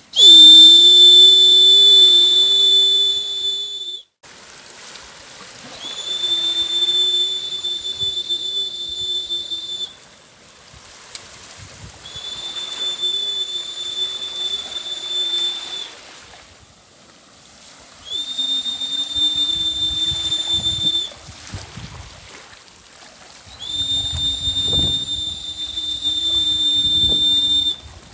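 A long, whistle-like blown tone sounded five times in a row, each held for three to four seconds with short pauses between. Each tone is a steady high pitch over a lower pitch that wavers.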